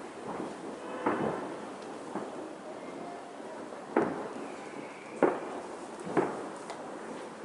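Fireworks going off: sharp bangs with crackling between them, the loudest two about four and five seconds in.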